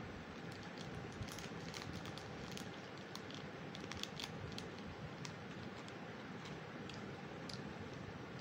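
Foil wrapper of a chocolate bar crinkling as it is handled: an irregular scatter of soft crackles that die away near the end.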